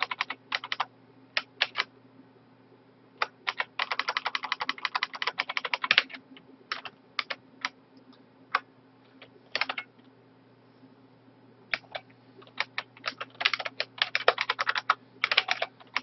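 Typing on a computer keyboard: quick runs of keystrokes broken by short pauses, with the longest runs about three seconds in and again near the end.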